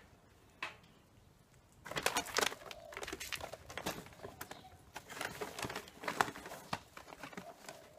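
Paper sack of Heat Beads charcoal briquettes being rummaged by hand: the paper rustles and crinkles and the briquettes click against each other. A single click early on, then from about two seconds in a steady run of crackles and clicks.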